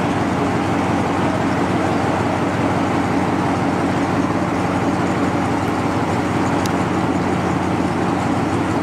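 Sixth-generation Chevrolet Camaro V8 with headers and an aftermarket exhaust, idling steadily with an even low drone.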